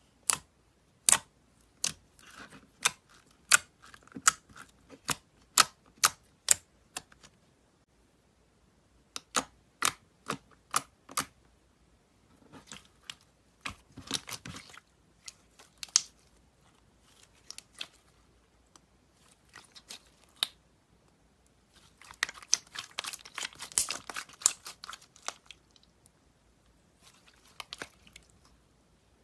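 Slime being pressed and squeezed, giving sharp wet pops and clicks: about ten in the first seven seconds, a few more after a short pause, then a stretch of dense crackling about three quarters of the way through.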